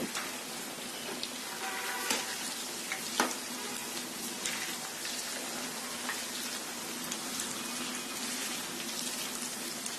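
Chicken pieces coated in gram flour and cornflour deep-frying in hot oil in a pan on medium heat: a steady sizzle with scattered small pops, and a couple of sharper clicks about two and three seconds in.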